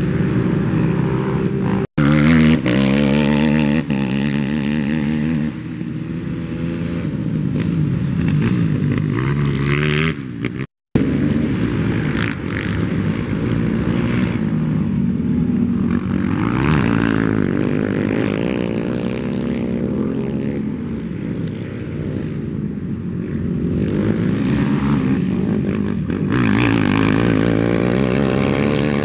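Racing ATV engines revving hard, their pitch rising and falling as the quads throttle up and ease off, with more than one engine heard at once. The sound drops out briefly twice, about two seconds in and again about eleven seconds in.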